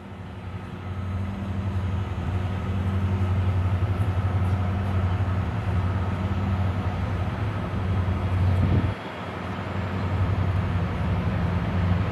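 Diesel locomotives leading an intermodal freight train approaching, their engines a steady low drone that grows louder. The level drops suddenly about nine seconds in, then builds again.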